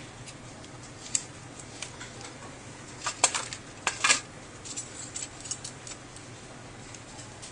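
Scattered small clicks and crinkles of fingers pressing and smoothing adhesive tape over a tablet's new battery and wires, loudest in a short cluster about three to four seconds in.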